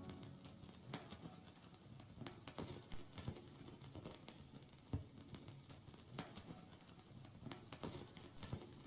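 Vinyl record surface noise in the quiet groove between songs: scattered clicks and pops over a faint low hum.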